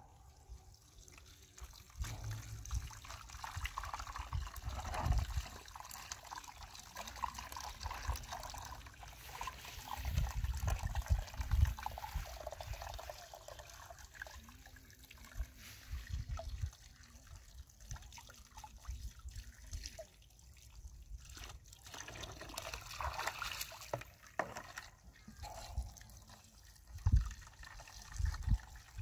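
Water trickling, with intermittent low rumbles.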